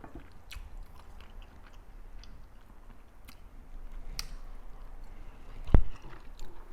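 Close-miked chewing of whole tilapia, with scattered small mouth clicks and one sharp click near the end.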